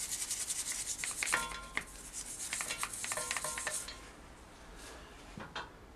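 Rapid back-and-forth scrubbing against the motorcycle engine's metal casing during degreasing, with a few short metallic clinks. It stops about four seconds in, and one soft knock follows near the end.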